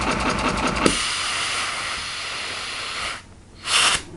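Lego pneumatic one-cylinder engine, its cylinder nozzles drilled out to 2 mm, running fast on compressed air with a rapid, even clatter for the first second. Then there is a click as a small air tube on the back pops off, and compressed air hisses out steadily until about three seconds in. A short burst of noise comes near the end.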